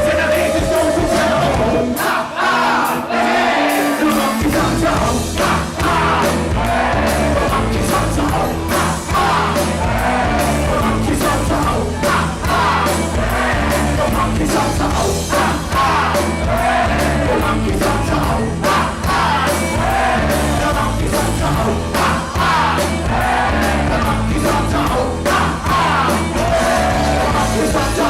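Live band playing a loud rock song, with a voice singing over it. The bass drops out briefly about two seconds in and comes back two seconds later.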